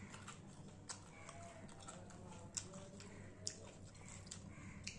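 Eating sounds from a hand mixing rice and fish curry by hand on a stainless steel plate: faint soft squishing with four sharp clicks spread through.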